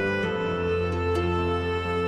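Instrumental background music with slow, held notes.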